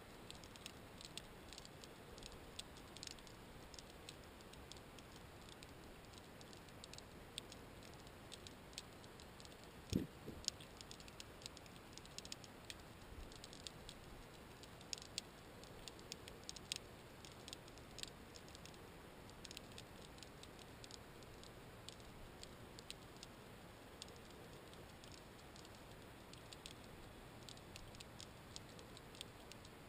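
Faint underwater ambience at a shipwreck: irregular sharp clicks and crackles over a low hiss, with one louder knock about ten seconds in.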